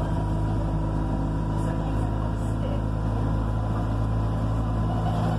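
Buses of Somerset 43811's diesel engine running steadily, heard from inside the passenger saloon: an even low drone with a faint steady whine above it.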